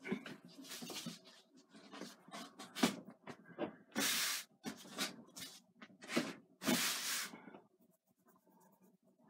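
A small canvas is handled on a wooden easel and rubbed flat by hand: a run of scraping rubs and light knocks, several of them loud and hissy, stopping a little before the end.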